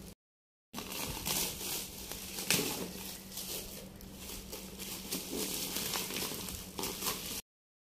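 Thin black plastic parcel bag crinkling and rustling as small hands pull at it and tear it open, in irregular scrunching handfuls.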